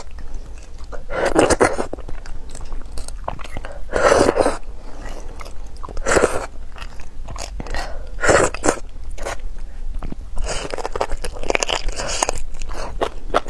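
Close-miked wet sucking and chewing as beef bone marrow in chili sauce is eaten straight from the bone. The louder mouthfuls come every two seconds or so, with small smacking clicks between them.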